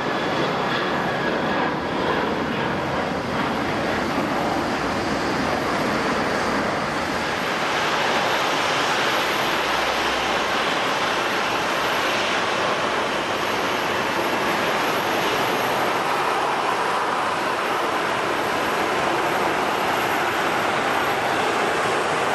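Jet airliner engines running: a steady, loud rush of noise with a faint high whine in the first couple of seconds, swelling about eight seconds in.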